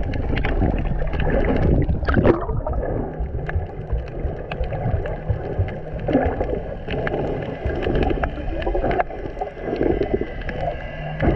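Water heard through a camera held underwater: a muffled, steady rush with swelling gurgles and many scattered sharp clicks.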